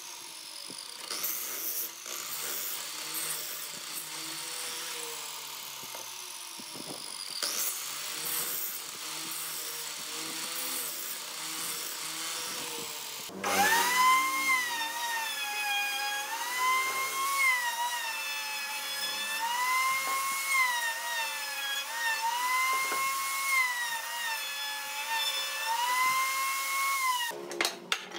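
Electric mitre saw cutting through a wooden block, its blade spinning up and then winding down in a falling whine, twice. About 13 seconds in, a router mounted in a router table takes over with a steady high whine that dips in pitch again and again as the wood is fed past the bit. Short wooden knocks come near the end.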